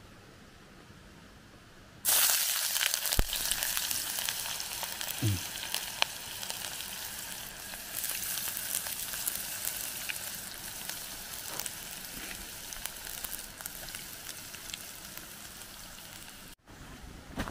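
Chopped red onion hitting hot cooking oil in a pan, sizzling loudly from about two seconds in and slowly dying down as it fries, with a few small clicks and spits.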